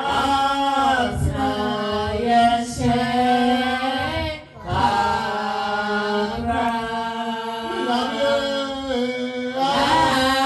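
A slow worship song sung with long held notes, breaking off briefly about four and a half seconds in.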